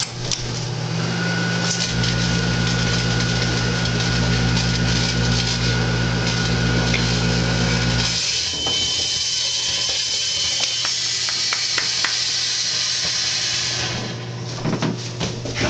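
A microwave oven runs with a steady deep hum while a small firework burns inside it, hissing and crackling. About eight seconds in, the deepest part of the hum drops away and the hiss turns brighter. Near the end the hiss thins out into scattered crackles.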